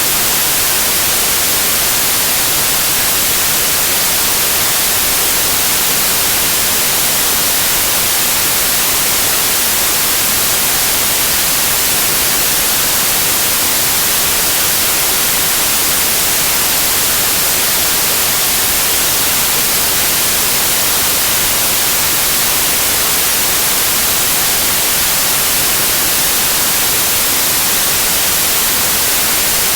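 Steady white noise like TV static: an even, unbroken hiss, strongest in the high frequencies, with no changes.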